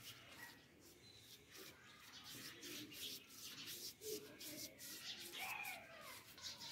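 Small paintbrush stroking paint onto a ribbed terracotta flowerpot: a quick run of faint, repeated brushing strokes.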